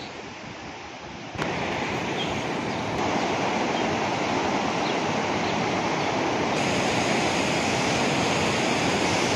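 Steady rush of fast-flowing water, getting louder in two steps in the first few seconds.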